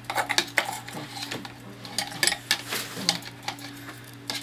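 Desk lamp being handled, with a dozen or so irregular sharp clicks and metallic clinks as its switch is worked to get the dead light back on. A steady low hum runs underneath.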